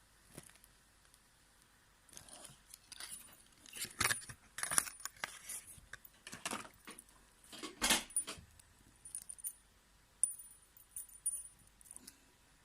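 Small metal fishing tackle handled and rattled: irregular clinks, jingles and rustles with a few bright metallic pings, busiest in the middle and thinning out near the end.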